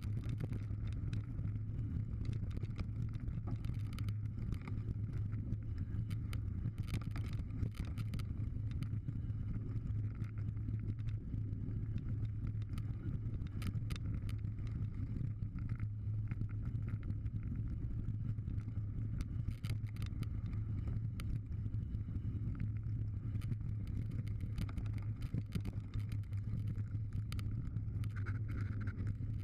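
Mountain bike riding fast down a loose gravel forest trail: a steady low rumble of tyres on the ground and wind, with frequent sharp clicks and rattles from stones and the bike's parts.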